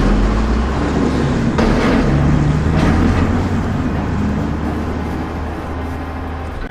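Large truck engine running with a steady low hum, slowly growing fainter.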